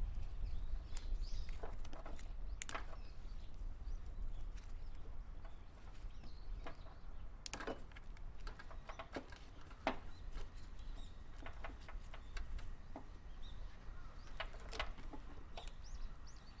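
Scattered light clicks, snips and taps of hand tools working on car wiring, a dozen or so irregular ticks over a steady low hum.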